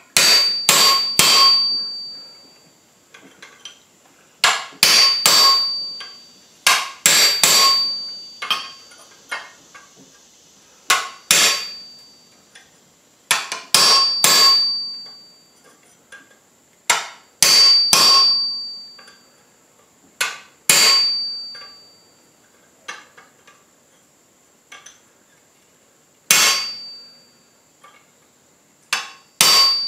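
Hammer blows on a handled top tool set into a red-hot steel bar on a JHM anvil, notching the bar to isolate the mass for the ears. The blows come in clusters of two to four with pauses between, and each one rings with a high metallic tone.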